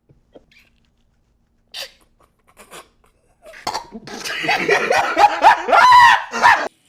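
Loud wordless vocal outburst from a person, in quick pulses with rising and falling pitch, lasting about three seconds and cutting off suddenly. A short sharp puff comes about two seconds in.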